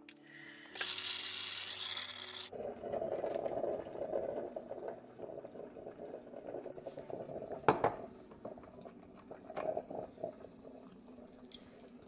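OBH Nordica drip coffee maker brewing: a loud hiss of steam for about two seconds, then steady gurgling and bubbling as the water boils up through the heater, with a sharp click near the middle.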